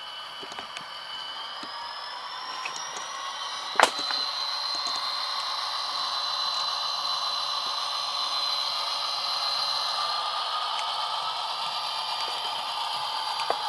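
Tsunami sound decoder in an HO-scale FP45 diesel locomotive model, playing its diesel engine sound through the model's small speaker, thin and without bass. Its tones climb for the first few seconds, as when the engine revs up, then hold steady with a high whine. A sharp click about four seconds in.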